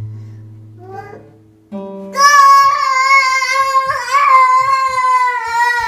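An acoustic guitar's low string is plucked and left ringing, and a second, higher string is plucked just under two seconds in. Then a small child sings one long, loud, high note that wavers slightly and lasts to the end.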